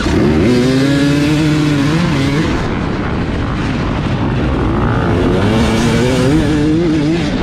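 Husqvarna dirt bike engine revving hard as the bike pulls away, heard close up. Its pitch climbs, drops sharply about two and a half seconds in, then climbs again, with other bikes' engines running around it.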